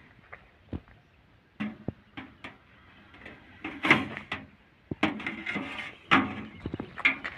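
Metal snake hook knocking and scraping against a steel tin box: a few scattered clicks, then louder rattling scrapes from about four seconds in.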